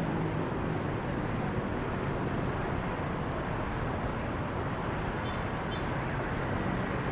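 Steady city street traffic noise, an even rush with no distinct single vehicle standing out.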